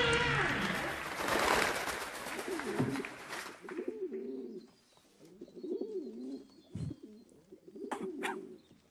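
A loud rushing noise fades away over the first three seconds or so. Then come several short phrases of low, wavering cooing like a pigeon's, with a few sharp clicks near the end.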